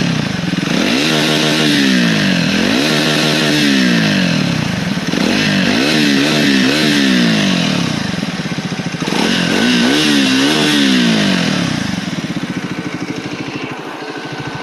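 Triumph 400 single-cylinder motorcycle engine revved through its exhaust in repeated throttle blips, the pitch rising and falling several times, some blips in quick pairs. It then drops back to a steady idle near the end.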